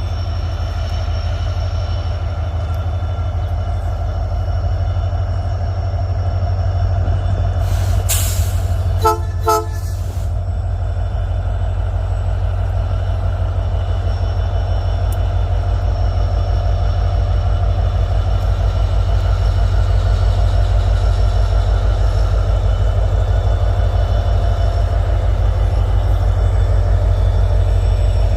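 Freight train hauled by diesel locomotives running by with a steady, loud low rumble. About eight seconds in there is a brief hiss, and then the horn sounds two short toots.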